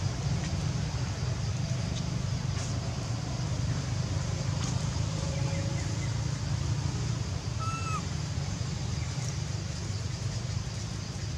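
Steady low rumble of background road traffic, with one short, high call that bends downward about eight seconds in.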